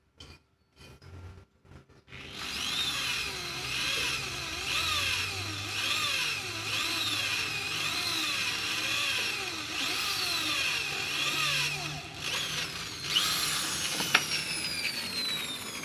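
Electric drill boring into a steel frame: after a couple of seconds of small clicks the motor starts, its pitch rising and falling about once a second as the bit works. It dips briefly near the end, runs again with a sharp click, then its pitch slides down.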